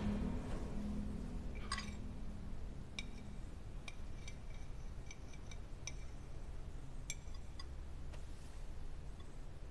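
Knife and fork clinking and scraping against a china plate while a steak is cut and eaten: a dozen or so light, irregular clinks with a brief ring.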